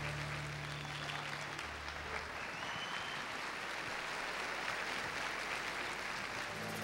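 Audience applauding after a song, as the band's last low notes die away in the first two seconds; just before the end a few instrument notes come in again.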